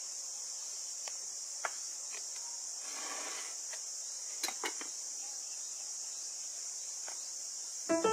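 A steady, high insect chorus, with a few light clicks and taps of kitchen utensils on a wooden cutting board and a brief rustle about three seconds in.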